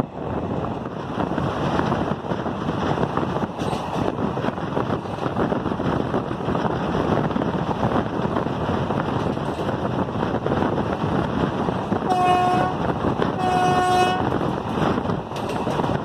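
Steady running noise of a moving train heard from a coach window, with wind on the microphone. About twelve seconds in, a locomotive horn sounds two short blasts in quick succession.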